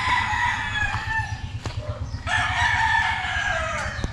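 Roosters crowing: two long crows, the second starting a little over two seconds in.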